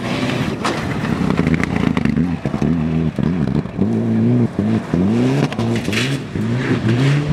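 Mitsubishi Lancer Evolution rally car's turbocharged four-cylinder engine revving hard on gravel, its pitch climbing and dropping again and again as it accelerates and changes gear.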